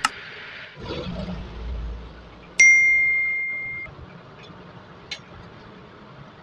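Metal lathe turning a PPR plastic pipe fitting stops running about a second in. Then a single sharp metallic ding, the loudest sound, rings out and fades over about a second, followed by a light click.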